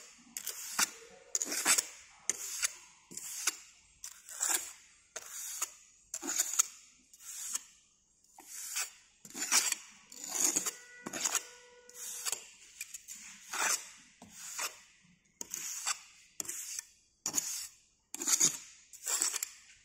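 A hand moulding tool scraping and smoothing damp moulding sand around a pattern in short repeated strokes, about one a second, as the mould surface is given its finishing.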